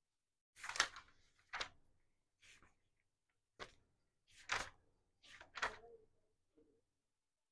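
Writing on a board: about seven short, sharp taps and strokes of a pen or marker, spread irregularly over several seconds, with silence between them.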